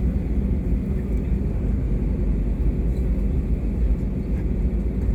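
Airbus A320neo airliner giving a steady low rumble, with no distinct events standing out.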